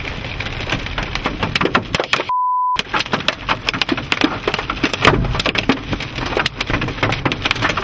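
Hailstones pelting a vehicle: a dense, irregular clatter of hard impacts over a rain-like hiss. A little over two seconds in, a short, steady, high bleep briefly replaces all the sound.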